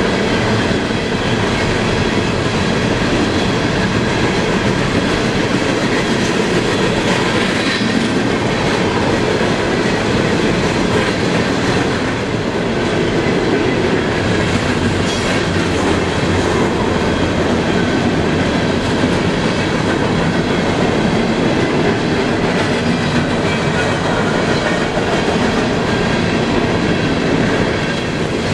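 A long CSX coal train of hopper cars rolling past close by: steady noise of steel wheels running over the rails.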